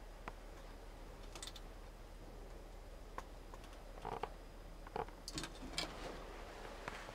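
Scattered faint clicks and light knocks, irregular and a few at a time, bunched toward the second half, over a low steady hum.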